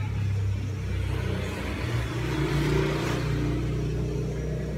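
A motor vehicle's engine running, its pitch stepping up about two seconds in and the sound growing loudest around three seconds in before easing off.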